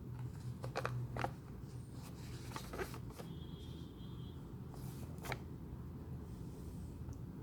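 Handling noises: a few scattered clicks and rustles, with a brief faint high beep in the middle, over a low steady hum.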